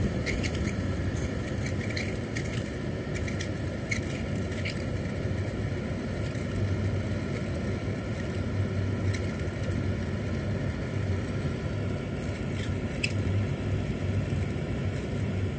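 2020 Kia Sportage running with its air-conditioning blower fan on: a steady hum with faint scattered clicks, cutting off abruptly at the end.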